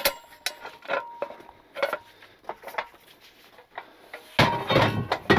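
Knocks and clanks of tow-dolly gear being handled and set into a tow truck's bed, some of them briefly ringing like struck metal, with a louder cluster of clanking about four and a half seconds in.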